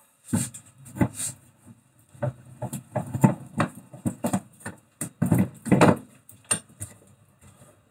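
Heavy rusty wheel hub parts being handled and fitted back together on a metal bench vice: a run of irregular metal clunks, knocks and scrapes.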